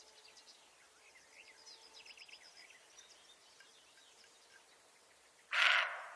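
Small birds chirping faintly, then near the end one short, harsh bark from a roe deer, the alarm call of a doe on alert.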